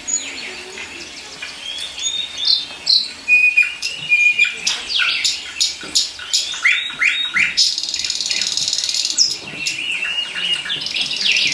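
Birdsong of quick chirps and short whistles, with a steady high insect-like trill for a second or so about two thirds of the way through.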